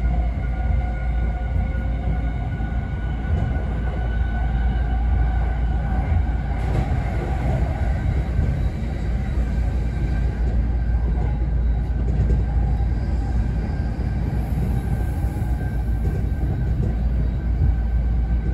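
Running sound inside a JR East E217 series Green Car travelling at speed: a steady rumble of wheels on rail with a thin steady whine above it.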